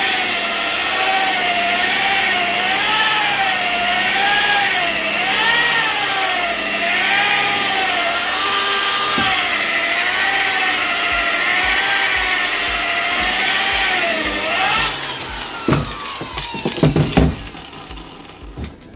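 Handheld electric machine polisher running on a lacquered van panel, its motor pitch wavering up and down as it is pressed and moved. This is the cut-back and polishing stage after 2000-grit wet sanding. It stops about 15 seconds in, followed by a few knocks and clatter as the tool is handled.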